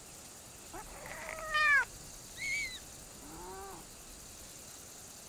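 Iberian lynx mewing: a drawn-out mew that rises and falls about a second in, a short high chirp halfway through, and a lower mew a little after three seconds.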